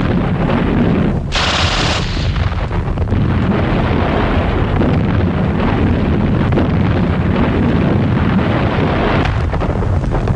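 Battle sound effects: a continuous, loud din of gunfire and shell explosions, with a brighter, hissing burst about a second and a half in.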